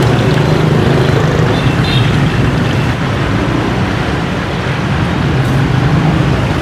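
Steady street traffic noise with a low engine hum underneath, unbroken throughout.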